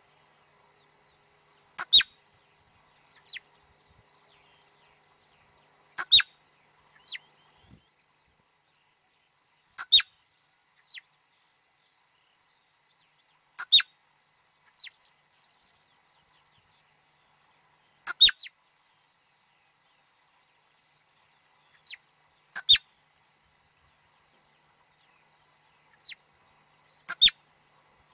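Marmot alarm calls: short, sharp whistles repeated about every four seconds, most of them paired with a fainter call about a second apart.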